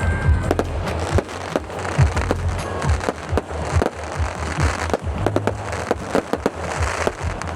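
Fireworks display: a rapid, irregular run of bangs and crackling cracks, with music playing underneath.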